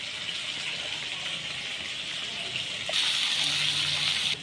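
Rice, dal and spices sizzling in hot oil in a frying pan, a steady hiss that grows louder about three seconds in and then stops abruptly.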